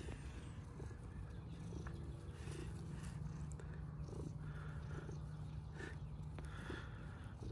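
Domestic cat purring steadily while being stroked.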